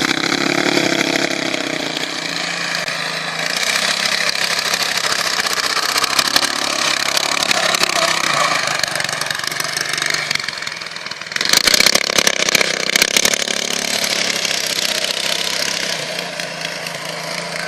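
Off-road buggy engine running at varying speed, with a loud burst of rattling noise lasting about two seconds past the middle.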